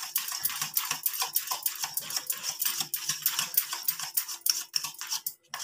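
Steel spoon beating thick gram-flour (besan) batter in a stainless steel bowl: a quick, even run of clicks and taps as the spoon strikes the bowl with each stroke, breaking off briefly near the end.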